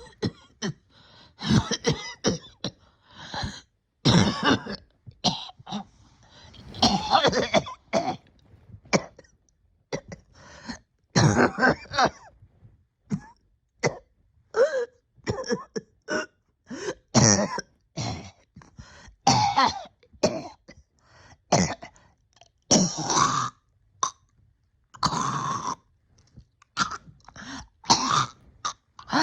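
A person coughing over and over in irregular fits, short hacks mixed with longer drawn-out coughs and throat clearing, a persistent cough that has lingered after an illness with breathing still not back to normal.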